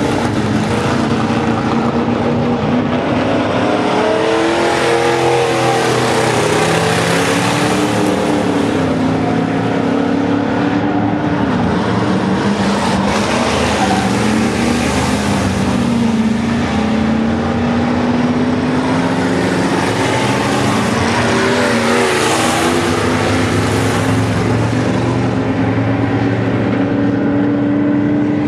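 Several V8 dirt-track stock cars racing in a pack, engines at high revs, their pitch rising and falling as they accelerate and lift through the turns.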